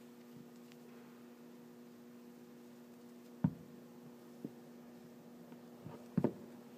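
A bar of soap knocks against a tabletop a few times as it is handled and stood on end: the loudest knock comes about three and a half seconds in, a lighter one a second later, and a quick double knock near the end. A steady low hum runs underneath.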